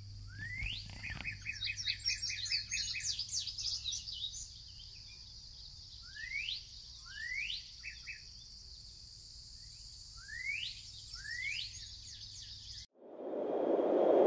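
Songbirds chirping: a quick flurry of chirps in the first few seconds, then pairs of clear notes that sweep upward. Near the end it cuts to a rising rushing noise.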